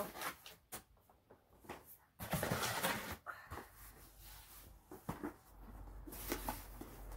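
Cardboard shipping box being opened and the boxes inside handled and pulled out: scattered knocks and taps, with about a second of rustling, scraping cardboard noise a couple of seconds in.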